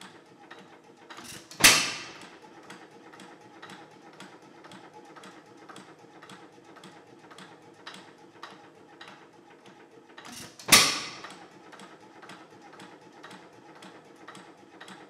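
Antique single-cylinder hit-and-miss engine running: it coasts on its flywheels with a steady rapid clicking, about three ticks a second, and fires twice with a sharp exhaust bang about nine seconds apart, the governor holding the exhaust open between firings.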